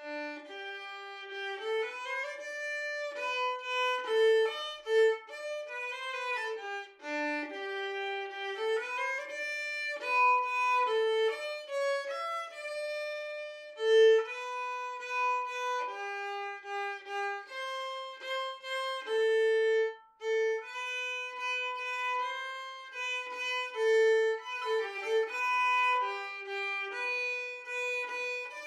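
Unaccompanied solo violin playing a melody one note at a time, as background music.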